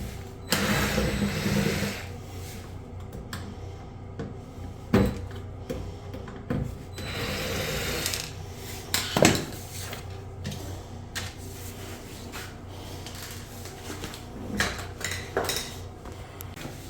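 Two short spells of a small motor whirring, about half a second in and again about seven seconds in, amid scattered clicks and knocks of parts being handled.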